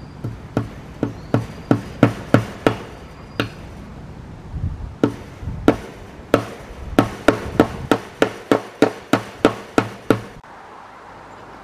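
Steel hammer driving fence staples into a wooden door frame to fasten wire panel fencing, struck in steady blows about three a second. There are two runs of strikes with a short pause between them about four seconds in.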